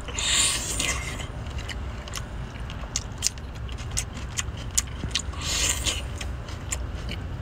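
Eating a cooked octopus tentacle: two slurps, one right at the start and one about five and a half seconds in, with many small wet clicks of chewing and sucking between them, over a steady low rumble.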